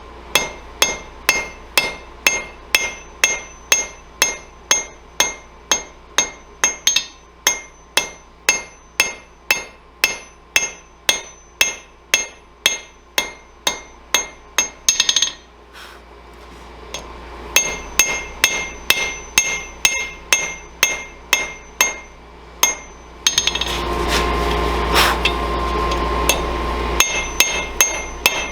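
Hammer blows on a hot railroad spike at the anvil, about two to three strikes a second, each with a bright metallic ring. The strikes pause briefly midway, and near the end a steady rushing noise takes over for a few seconds before the hammering resumes.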